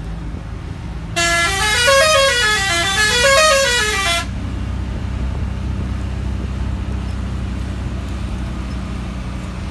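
A bus's musical horn plays a tune of short stepped notes that climb and then fall, twice over, starting about a second in and stopping about four seconds in. The bus engine runs steadily underneath.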